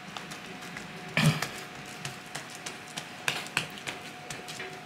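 Hands patting and pressing a ball of dough flat on a silicone baking mat: a few soft taps and thumps, the loudest about a second in.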